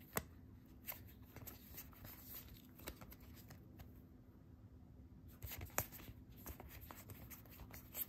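Magic: The Gathering token cards being flipped and slid past one another in the hands: faint swishes and clicks of card stock, with a few sharper snaps, the loudest just after the start and around six seconds in.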